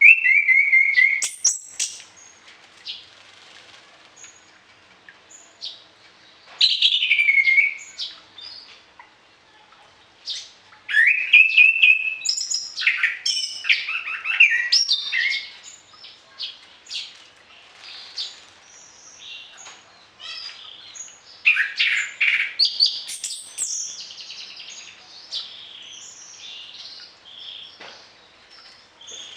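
Orange-headed thrush singing a varied song of whistled phrases with gliding notes and rapid twitters, in loud bursts separated by quieter chirping.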